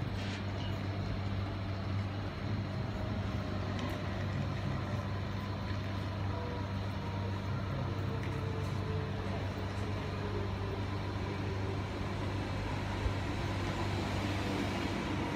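Double-deck TER electric multiple unit approaching and running into the platform, its running noise and a faint gliding motor whine building toward the end. A steady low electrical hum lies under it, and there is a single click near the end.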